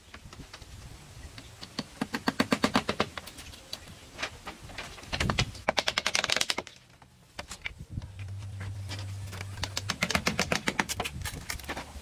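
Rapid runs of sharp taps or clicks, about ten a second, coming in bursts of a second or two, with a louder, denser burst near the middle.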